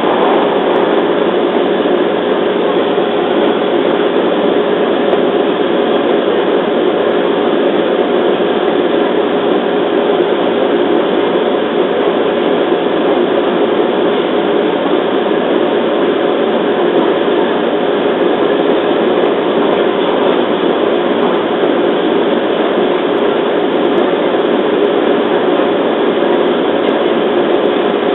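JR East 211 series electric train running at a steady speed, heard from inside the passenger car. There is an even rumble of wheels on rail, with a steady hum holding one pitch.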